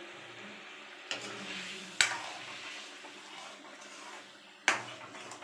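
Chicken curry being stirred in a metal kadai as it boils down its water. A faint bubbling sizzle runs under scraping, and the utensil knocks sharply against the pan twice, about two seconds in and near the end.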